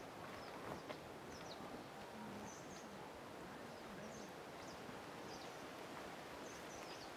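Quiet outdoor ambience with faint, scattered high bird chirps.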